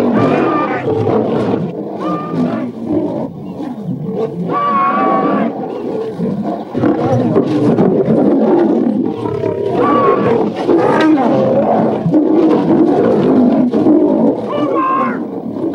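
Lions roaring and growling continuously as they fight, with several short, higher wavering cries breaking through.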